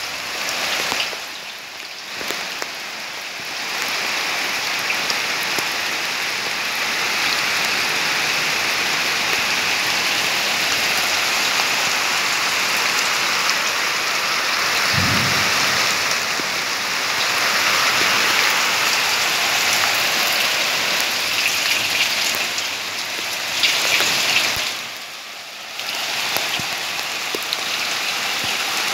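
Steady splashing hiss of rainwater: rain falling, and rainwater pouring from a PVC pipe elbow into an open blue plastic barrel.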